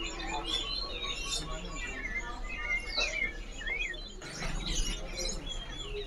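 Caged songbirds chirping and twittering, with many short overlapping calls and quick rising and falling whistles over a steady low hum. A short rush of noise comes about four seconds in.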